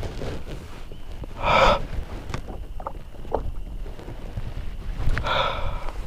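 A man breathing out heavily twice, about a second and a half in and again near the end, with a few small knocks between. Low wind rumble on the microphone runs underneath.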